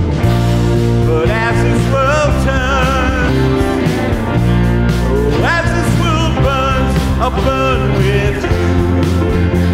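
Background song: a voice singing over a band with steady bass and a regular beat.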